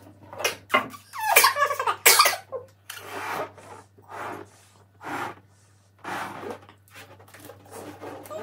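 A balloon being blown up by mouth: a string of short, forceful breaths blown into it, one every half-second to second with short pauses between.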